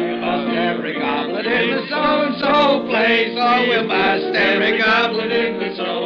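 A group of men singing together loudly, several voices overlapping over held accompanying chords.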